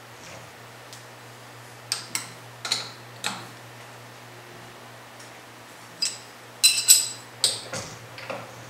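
Sharp metallic clicks and taps from metal workshop parts being handled, about four a little after two seconds in and a louder cluster of about five from six to eight seconds in, over a steady low hum.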